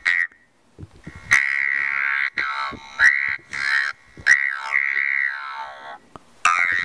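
Talk box reciting a poem: a buzzy electronic tone from a phone, piped through a tube into the mouth and shaped into words, on one steady pitch, spoken in phrases with short pauses.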